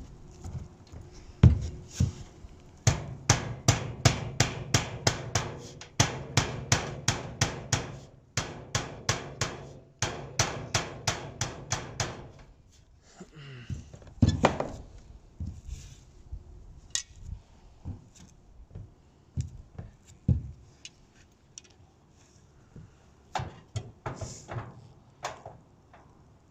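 Hammer blows knocking standing-seam gable trim into place on the metal roof panel. There are two steady runs of about three blows a second, then a few scattered knocks.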